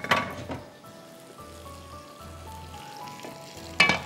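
Buffalo sauce steadily sizzling in a pan over soft background music, with a brief louder sound near the end.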